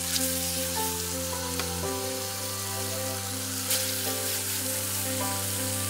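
Beef chuck roasts sizzling as they sear in hot olive oil in an enameled Dutch oven, a dense steady frying hiss with a few sharper crackles. Background music with sustained chords plays underneath.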